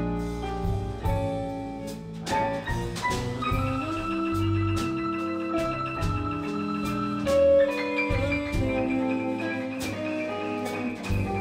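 Live blues band playing an instrumental passage with no singing: a lead instrument holds long high notes over bass and drums.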